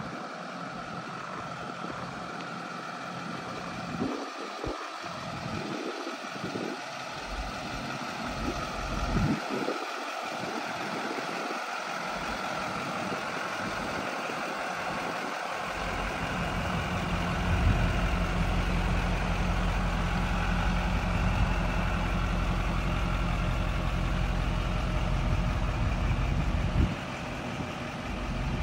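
Custom 1955 GMC DW950 semi truck's engine idling steadily. It comes in about halfway through as a low, even rumble and stays louder from then on. Before that there is only a steady outdoor hiss.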